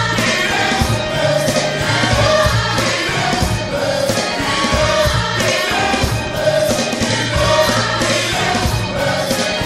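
Gospel choir singing over music with a steady beat and sustained low bass notes.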